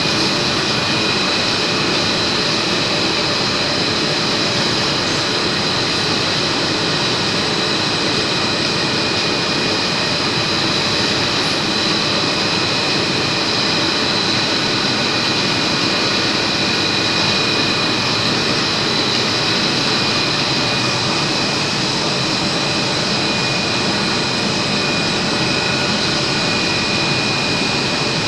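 Polyethylene cling film production machine running: a steady, even rush of noise with constant high whining tones over it.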